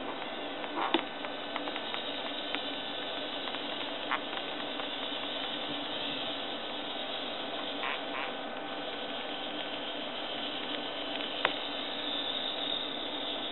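Homemade RC tracked vehicle running: a steady whir from its modified-servo drive motors and tracks, with a few short sharp clicks.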